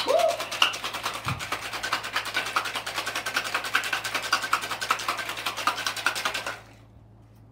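Ice rattling inside a metal cocktail shaker shaken hard, a rapid, even run of sharp clatters several times a second that stops suddenly about six and a half seconds in.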